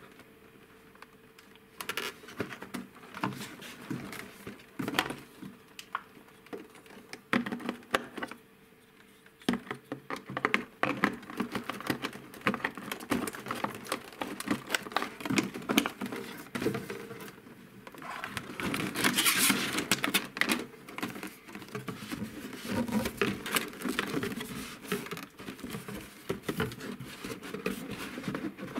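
Stiff clear plastic blister packaging and a cardboard box handled by hand: irregular clicks, taps and crinkles, with a denser stretch of rustling about two-thirds of the way through.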